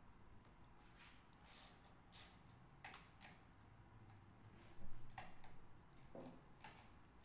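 Faint, scattered metallic clicks and taps of a hand tool on the spring bolts of a Honda CBX clutch pressure plate as they are tightened evenly to compress the clutch springs; about six separate clicks, the loudest a little before the five-second mark.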